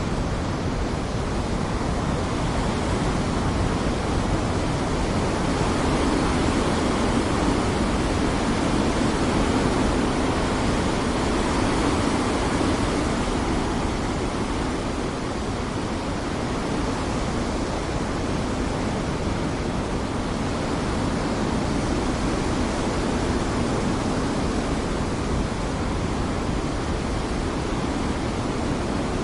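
Storm wind blowing hard, a dense, steady rushing noise that swells a little near the middle and eases off again.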